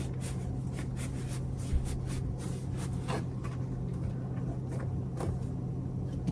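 A steady low hum runs throughout, with scattered light clicks and knocks and one single thump a little under two seconds in.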